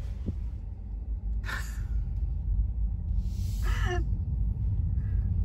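Steady low rumble of a car driving slowly, heard from inside the cabin. Two short breathy sounds, like gasps, come about one and a half and three and a half seconds in.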